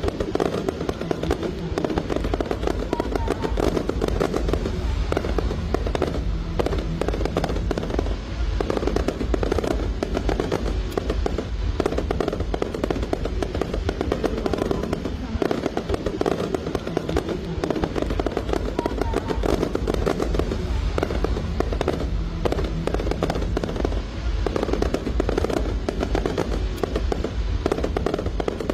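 An aerial fireworks display: shells bursting in a rapid, unbroken barrage of bangs and crackling, with music playing underneath.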